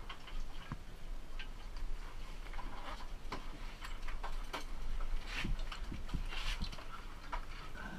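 Irregular light clicks and knocks of scuba gear being handled, over a low steady rumble.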